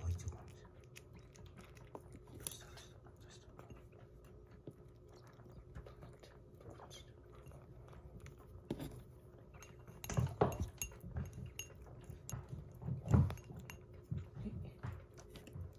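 Kitten eating soft wet weaning food from a glass bowl, with faint wet chewing and lapping. From about ten seconds in, a spoon knocks and scrapes against the glass bowl several times, louder than the eating.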